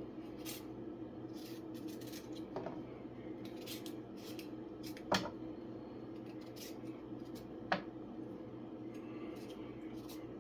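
Kitchen knife cutting carrots: a run of short crisp cuts and scrapes, with two louder sharp knocks about five and eight seconds in, over a steady low hum.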